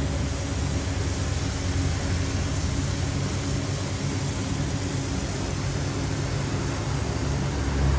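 Gas wok burner running under a steel wok, a steady rushing noise with a low rumble.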